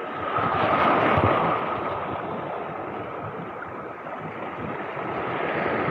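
Small sea waves washing over shoreline rocks, swelling about a second in and building again near the end.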